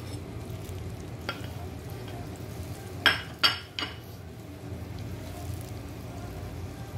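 Diced onion frying gently in olive oil in a stone pot, a soft, steady sizzle. A light tap comes about a second in, and three sharp knocks come around three seconds in.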